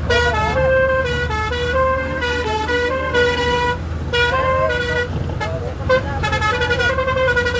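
A vehicle's musical horn playing a tune of stepped notes, over the steady low hum of the moving vehicle.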